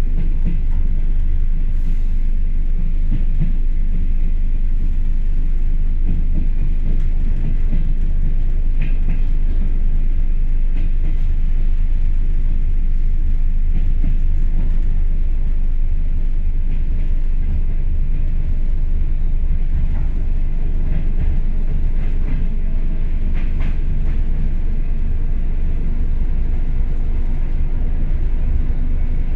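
ER2 electric multiple unit running: a steady low rumble, with a few faint clicks.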